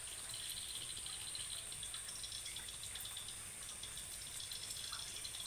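Insects chirring steadily outdoors, a continuous high trill in two pitches over a faint background hiss.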